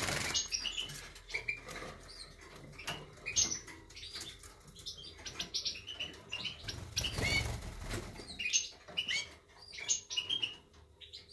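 Sixteen-day-old European goldfinch fledglings of the large major race giving many short, high chirping calls, with a burst of rustling about seven seconds in.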